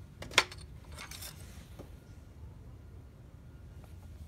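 A single sharp click about half a second in as the yellow oil dipstick on a John Deere LA120 lawn tractor's engine is handled in its tube, followed by faint scraping.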